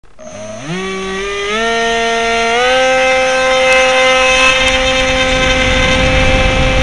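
Electric motor and propeller of a Multiplex EasyStar RC plane, heard from a camera mounted on the plane: the motor starts and its whine steps up in pitch in several stages over about three seconds, then holds steady under a growing rush of air.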